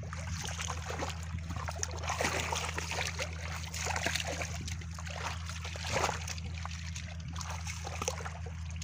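Shallow water splashing and sloshing as hands grope through it and legs wade, a steady run of small irregular splashes, a little louder about two seconds in and again around six seconds.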